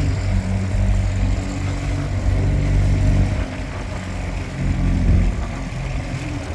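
Small boat's engine running at low revs, its level dipping a little past halfway and rising again about five seconds in.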